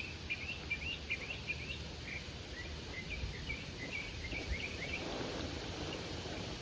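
A small bird chirping in quick runs of short rising notes, several a second, that pause and pick up again. Beneath it is steady outdoor background noise with a low rumble, and a soft rustle comes about five seconds in.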